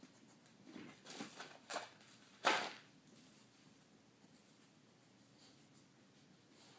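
Dog nosing at a food bowl at the foot of a metal gate: a few rustles and snuffles, a sharp knock as the bowl is knocked flat, and a louder short scrape or sniff about two and a half seconds in, then quiet.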